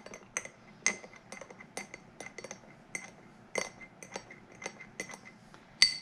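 A spoon clinking against the inside of a glass mug while stirring espresso into milk froth. Light, irregular clinks come about three a second, with a sharper clink near the end.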